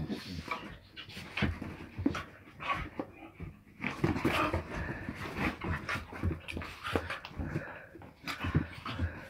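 Two Staffordshire bull terriers play-wrestling at close range: dog breathing and panting mixed with many short, irregular scuffling sounds.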